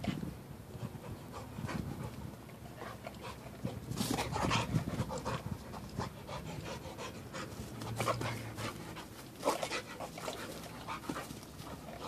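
Dog panting hard as it runs about, quick rough breaths, with a few louder bursts about four and nine seconds in.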